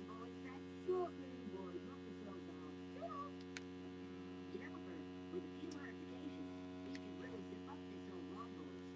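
Steady electrical hum made of several held tones, with faint short squeaky chirps scattered over it and a soft knock about a second in.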